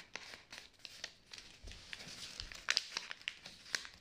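A sheet of paper being folded and creased by hand, with soft rustling and short crinkles, a few sharper crackles in the second half.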